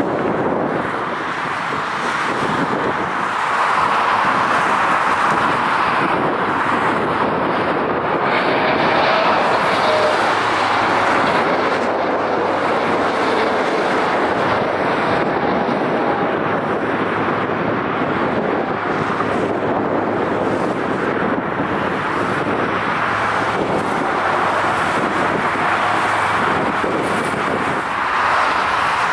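Jet airliner engines running, heard as a steady rushing noise that swells and eases a little as the aircraft move.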